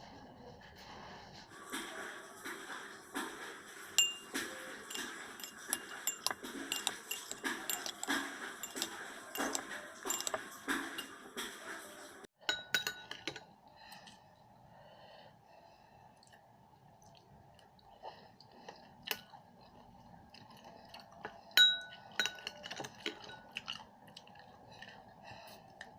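Kitchen utensils clinking against dishware, rapid and continuous for about ten seconds. After a sudden break the clinks turn sparse and lighter, with a few sharper ringing taps.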